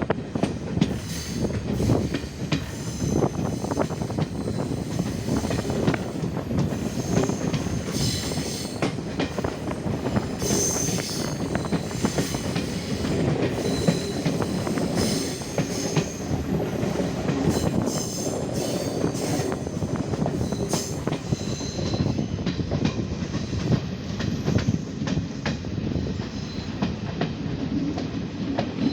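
Train running on the rails: a steady rumble with the clickety-clack of wheels over rail joints, and high-pitched wheel squeal coming and going through the middle part.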